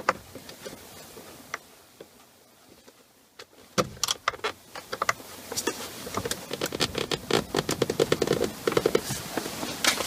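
Handling noise from gloved hands working behind a steering wheel: faint at first, then from about four seconds in a busy run of light clicks, scrapes and rubbing.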